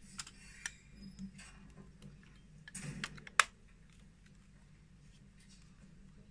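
Small plastic clicks and rattles as AA batteries are fitted into the battery holder of a Singer handheld sewing machine. A louder rustle about three seconds in is followed by one sharp snap.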